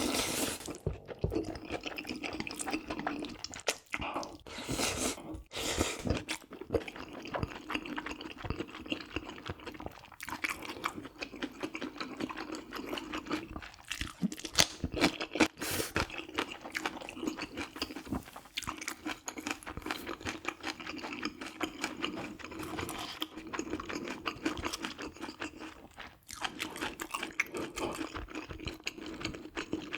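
Close-miked chewing with crisp crunching, a person eating food mouthful after mouthful with short irregular strokes and a few brief pauses.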